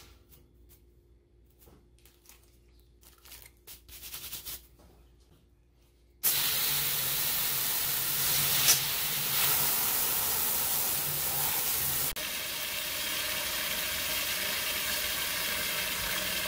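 Hot water from a garden hose gushing and splashing into a stainless steel brew kettle. It starts suddenly about six seconds in, after a few faint clinks and rustles of a hand in the pot, and changes character abruptly partway through as the kettle fills.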